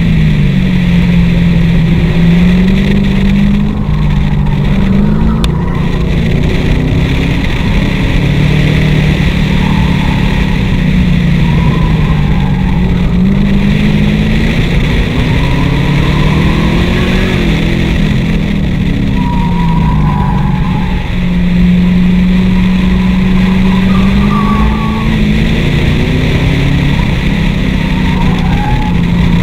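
A car engine worked hard in second gear through a cone course, its pitch rising and falling again and again as the car speeds up and slows between turns, over a steady rush of wind and road noise. Short tyre squeals come in now and then through the turns.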